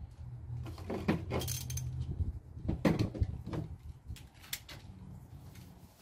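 Metal hand tools clinking and jangling in several short bursts, over a steady low hum.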